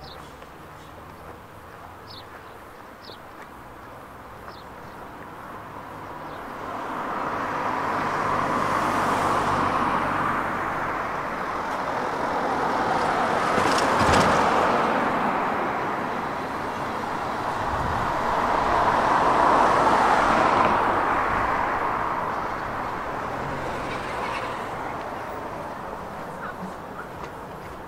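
Road traffic: several vehicles pass close by in turn, each one's tyre and engine noise swelling and fading. The loudest pass comes about halfway through, with a short knock at its peak.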